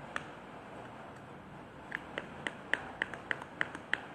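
Spoon clicking against a bowl while stirring syrup into a thick powder mix: a lone click near the start, then a quick run of light clicks, about five a second, in the second half.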